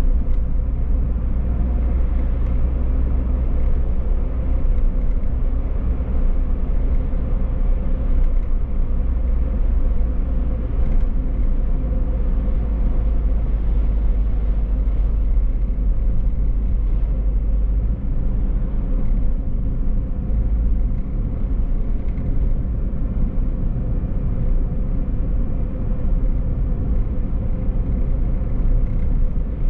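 A car driving, with a steady low rumble of engine and road noise that holds unchanged throughout.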